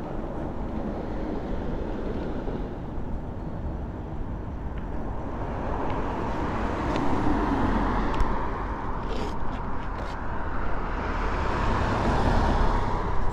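Wind rushing over the microphone and road noise from a moving e-bike, a steady low rumble that swells and eases with the ride, with a few light clicks about nine seconds in.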